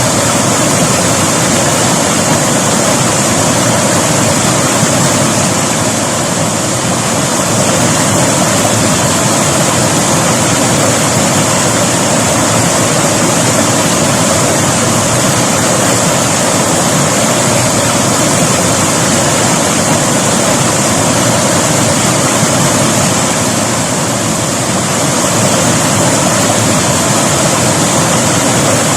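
River water rushing and splashing over rocks in a steady, even roar of water noise, dipping slightly in level twice.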